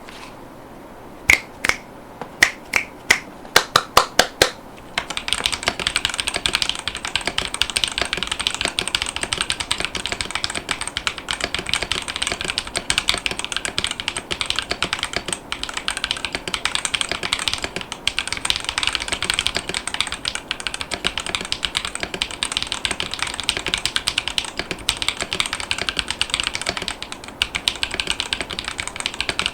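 Ducky ONE 3 SF mechanical keyboard with Gateron Weightlessness 50gf tactile switches and double-shot PBT keycaps, being typed on. About ten separate key presses come first, then fast, continuous typing from about five seconds in.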